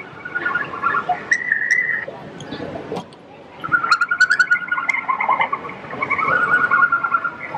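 Recorded red panda calls, high chirping, twittering whistles, played through the small speaker of an exhibit panel. They come in runs of chirps, with a short pause about three seconds in.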